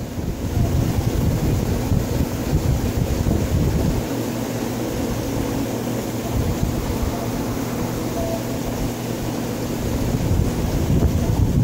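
Steady low rumble of circulating water with an electric pump hum from a reef aquarium's running equipment.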